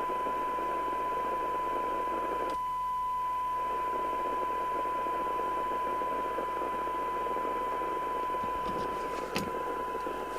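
A CB radio receiver's speaker playing a steady single-pitch test tone over hiss, from a weak modulated signal-generator signal during a receive sensitivity check. The hiss thins for about a second early on, and there is a click near the end.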